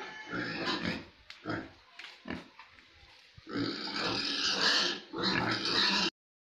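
Pigs grunting and squealing in short irregular calls, louder and denser from about three and a half seconds in, then cutting off suddenly near the end.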